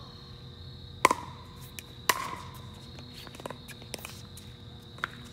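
Two sharp hollow pocks of a plastic pickleball coming off paddles during a rally, about a second apart, followed by a few fainter taps.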